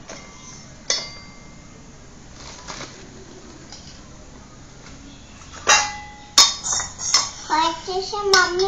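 Small stainless-steel pot, lid and spoons clinking and knocking together as they are handled: a few sharp metallic clinks that ring briefly, the two loudest a little before and after six seconds in, then a quick run of knocks. A young child's voice joins near the end.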